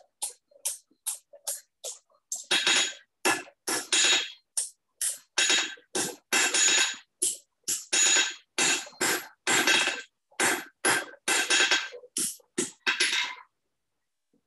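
Hand hammer striking a thin red-hot steel bar on an anvil, each blow ringing. Light quick taps for the first couple of seconds, then heavier blows at about two to three a second, which stop shortly before the end.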